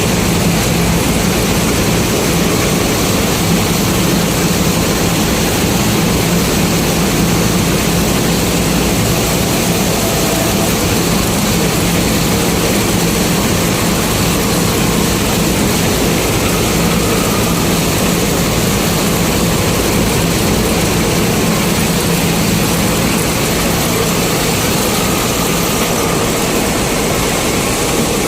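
Combine harvester engine running steadily under load, a loud constant drone with a steady low hum.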